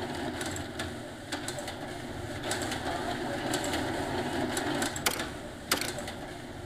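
Open-plan office background noise: a steady murmur with irregular sharp clicks.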